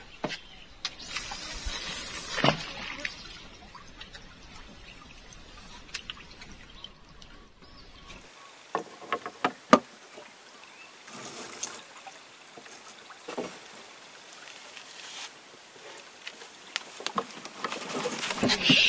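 Water trickling and lapping at a river's edge, with scattered light clicks and knocks.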